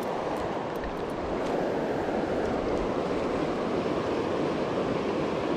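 Shallow river rapids rushing steadily over rocks, a constant rush of water that grows a little louder about a second in.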